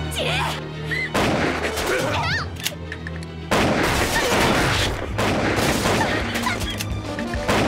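A barrage of gunfire and bullet impacts, heavier from about three and a half seconds in, over tense background music.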